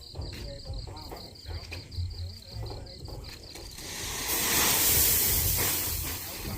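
Insect chirping in quick, even pulses over a low rumble, then a loud rush of noise that swells about four seconds in and eases off near the end.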